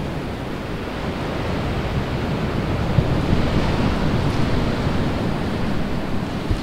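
Steady rush of sea surf on a beach, with wind buffeting the microphone.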